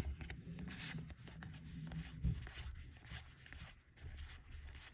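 Trading cards being handled: cards slid off a handheld stack one after another, with soft rubbing of card stock and a few light clicks.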